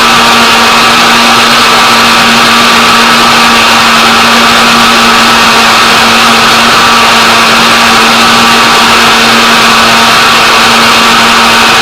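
Electric kitchen blender running steadily at full speed, a loud, even motor whine with a constant hum and a whirring rush that does not change.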